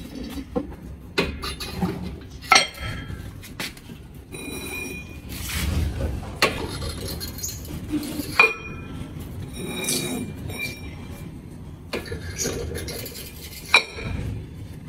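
Iron weight plates clinking against each other and the steel frame of a weight bench as they are stacked onto its plate-holder pegs: irregular sharp metal knocks a second or two apart, some ringing briefly.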